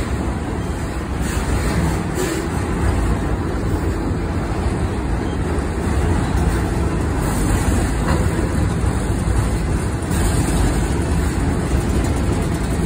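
Freight train of enclosed autorack cars rolling past at close range: a steady, loud rumble of steel wheels on the rails.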